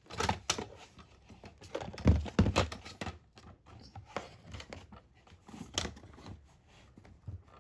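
Irregular clicks, knocks and rustling from objects handled close to the microphone, with the loudest knocks about two seconds in and again near the end.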